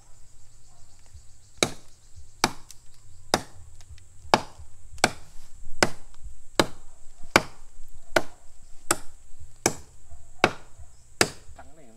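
A blade chopping into bamboo: about a dozen sharp strikes at a steady pace, roughly one every 0.8 s, beginning about a second and a half in.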